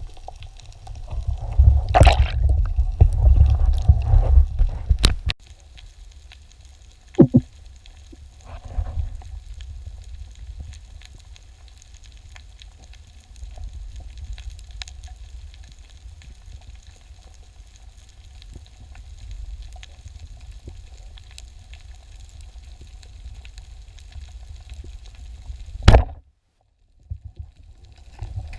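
Muffled underwater sound from a diver's camera: a low rushing rumble of water movement, loudest for the first few seconds, with a few sharp knocks and clicks. The sound cuts out completely for about a second near the end.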